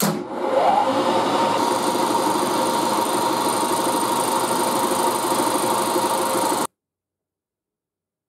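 Milling machine spindle spinning up, its pitch rising for under a second, then running steadily while an end mill cuts a notch into a brass ring. The sound cuts off suddenly near the end.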